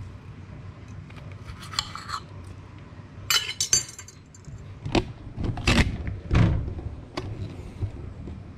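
Stainless knife and fork scraping and clinking against a plate, then a metal clatter about three and a half seconds in as the knife is laid down on a granite countertop, followed by a few dull knocks.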